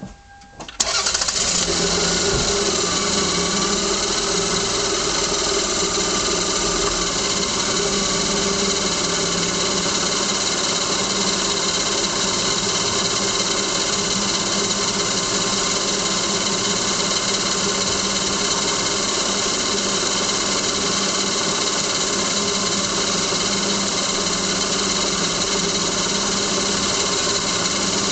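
2000 Lexus ES300's V6 engine starting about a second in, then idling steadily, heard from inside the engine bay.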